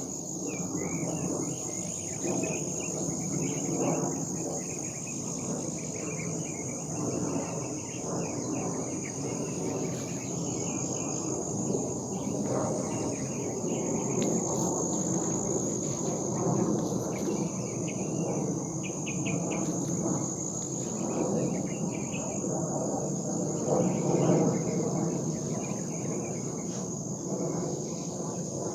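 Crickets trilling in a steady high chorus over a low, wavering rumble from the sky that swells and fades. The uploader takes the rumble for a distant fighter jet or drone.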